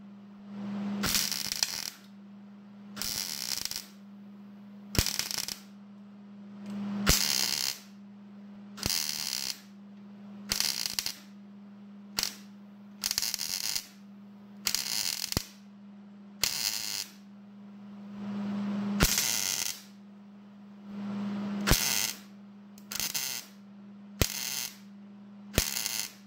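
Arc welder stitch-welding a truck's sheet-metal bed floor in about fifteen short crackling bursts with brief pauses between them, over a steady low hum. The short stitches are what puts heat into the floor, which the welder is not worried will warp.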